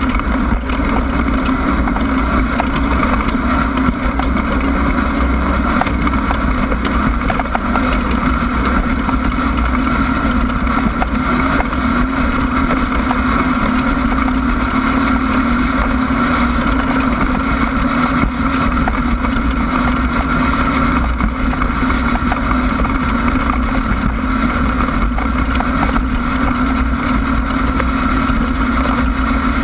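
Class 1600 off-road race car's air-cooled Volkswagen engine running steadily under way.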